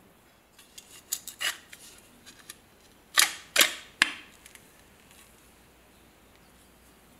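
Austrian M17 trench knife pushed into its steel scabbard: a few light scraping clicks, then three sharp clacks within about a second as the blade goes home.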